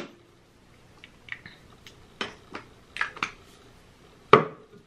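Light clicks and knocks of a foundation bottle and makeup tools being handled and set down on a tabletop, about six in all, the loudest knock a little after four seconds in.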